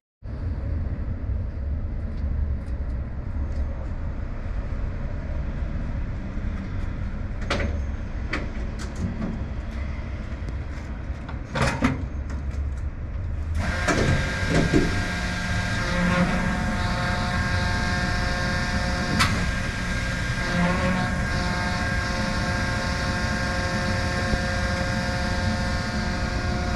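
Truck running, a steady low rumble of engine and road with a few clicks in the first half. About halfway through the sound changes abruptly to a steadier, fuller drone with several held tones.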